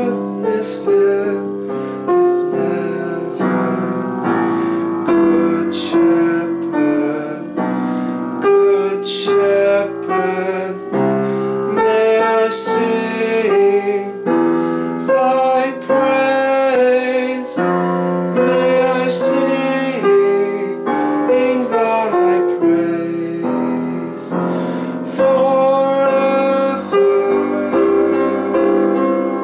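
A man singing solo to piano accompaniment.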